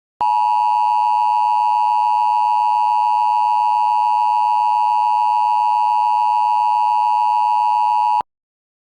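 Emergency Alert System attention signal: a loud, steady two-tone alert tone held unchanged for about eight seconds, then cut off sharply. It is the alarm that follows the SAME header bursts and comes before the test message.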